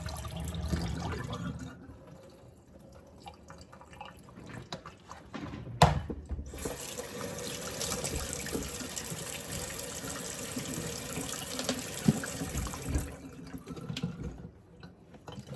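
Kitchen sink tap running, water splashing into the sink. It stops after about two seconds. A single sharp knock comes about six seconds in, then the tap runs steadily again for about seven seconds.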